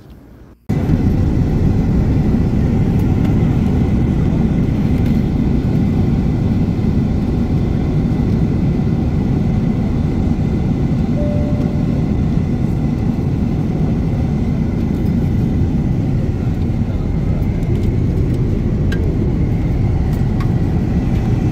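Passenger jet cabin noise: a steady low rush of engine and airflow with a faint high steady whine. It starts suddenly about a second in.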